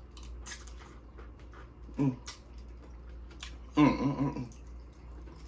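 Dungeness crab leg shells cracking and snapping open, with a few sharp clicks and some chewing, and two short voiced sounds from the eater.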